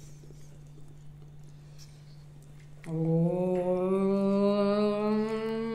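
A woman's voice holding one long sung note, starting about three seconds in and slowly rising in pitch, over a faint steady low hum.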